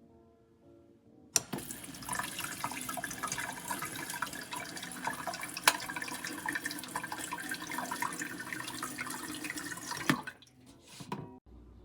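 Water running from a tap, a steady splashing rush with small clicks that starts abruptly and stops abruptly after about nine seconds.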